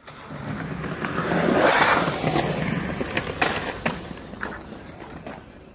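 Skateboard rolling, building up over about two seconds, then several sharp clacks of the board before the sound fades out.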